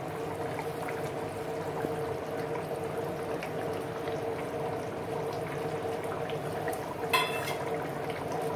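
Chicken curry boiling steadily in an open pressure cooker on a gas burner, a continuous bubbling, with a brief metallic clink about seven seconds in.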